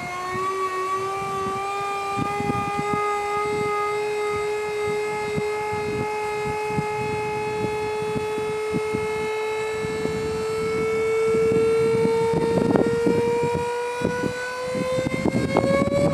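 Hydraulic power unit of a TrailMax FWTRD-100-PR trailer's power ramp running under load as it lifts the ramp from the ground to upright: a steady whine that slowly rises in pitch, climbing faster in the last few seconds.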